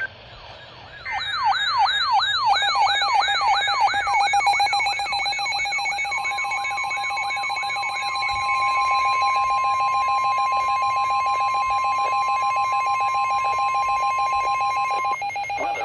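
Electronic emergency alert tones: starting about a second in, a fast siren-like wail sweeping up and down about three times a second, layered over a steady, pulsing attention tone. The wail fades out about halfway through, and a second steady tone joins the attention tone until both cut off just before the end.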